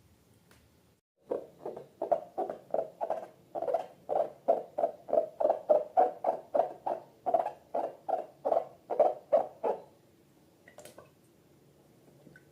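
Slime being squished over and over, a quick run of wet squelches about three a second that stops about two seconds before the end, followed by a single sharp click.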